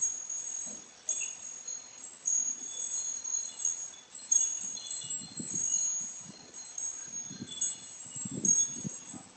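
Wind chimes ringing in irregular high notes, struck about once a second by gusts, with low rumbles of wind buffeting the microphone now and then.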